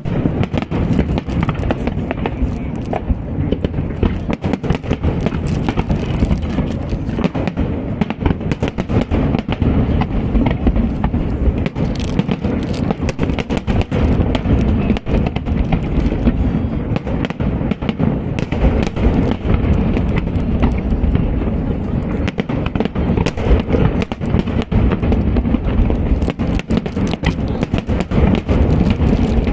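Fireworks going off in a dense, unbroken barrage: deep booms under rapid crackling bangs throughout.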